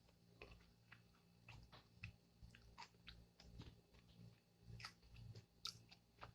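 Faint chewing close to the microphone: a string of soft, irregular wet clicks and smacks of a mouth eating.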